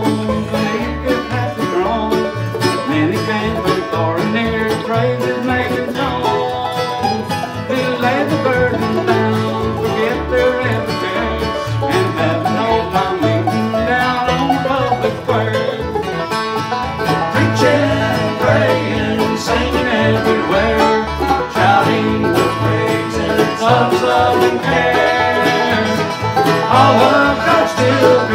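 Bluegrass band playing live: five-string banjo, mandolin and acoustic guitar picking together over an upright bass.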